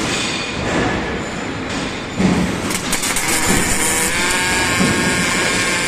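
Industrial welding robot cell running: a steady mechanical whine over a rough, noisy machine sound that gets louder about two seconds in.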